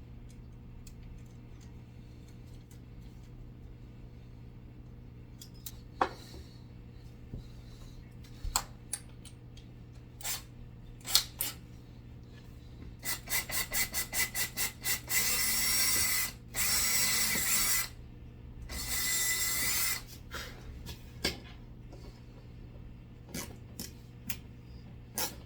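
A tool enlarging a hole in a cabinet panel. Scattered clicks and knocks, then about halfway through a quick run of rough strokes, then two continuous rough stretches of a couple of seconds each.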